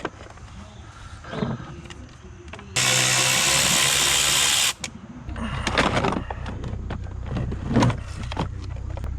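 A cordless power drill/driver runs in one steady burst of about two seconds, a few seconds in, amid clicks and knocks of parts being handled; a low steady hum starts shortly after and continues.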